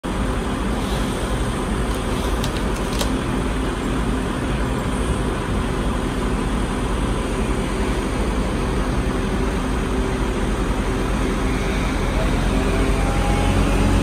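Heavy engine running steadily, most likely the crane's diesel, revving up and rising in pitch near the end as it lifts the cut trunk section, with a few sharp clicks about two to three seconds in.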